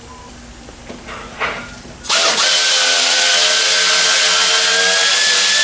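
Handheld power tool, such as a drill/driver, running at steady speed for about three and a half seconds. Its whine rises slightly in pitch before it cuts off suddenly. Light knocks of hand work come before it.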